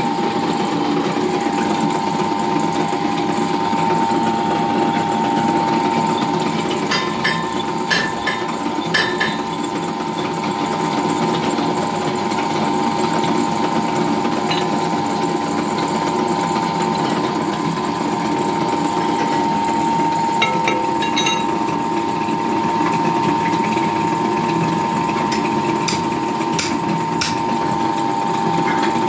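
Drill press running steadily with a constant hum and whine while its bit drills holes through a metal plate for a soap plodder's perforated die. There are a few short clicks in a cluster about a quarter of the way in and again in the later part.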